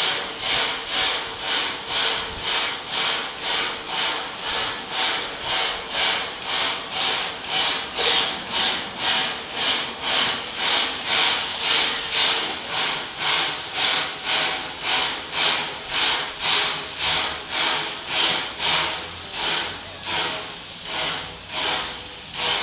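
Puffing Billy's NA-class 2-6-2T steam tank locomotive 6A chuffing at walking pace, its open cylinder drain cocks hissing out steam at about two beats a second. The beats fade over the last few seconds.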